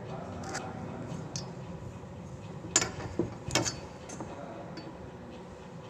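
Steel try square and wooden block handled on a workbench during marking out: a few light clicks, then a sharp knock a little under three seconds in, the loudest sound, followed by a short cluster of knocks about half a second later.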